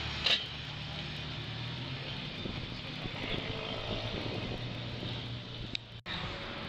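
Mitsubishi Lancer Evolution X rally car's turbocharged four-cylinder engine running at low revs as the car moves off slowly, with a sharp crack about a third of a second in. The sound cuts out for an instant near the end.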